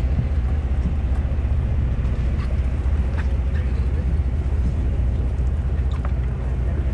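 Sportfishing boat's engine running as a steady low drone, with a few faint clicks over it.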